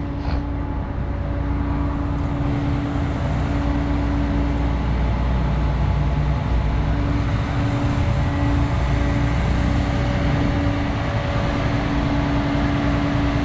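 Diesel truck engine idling: a steady low rumble with a constant hum, unchanging throughout.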